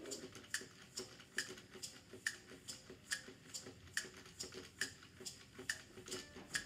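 Faint, steady ticking, a little over two sharp ticks a second.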